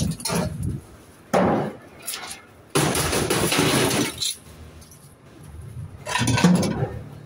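Scrap being unloaded from a van and thrown onto a scrap pile, clattering and crashing. There is a sharp crash about a second in, a longer clatter in the middle, and another clatter near the end.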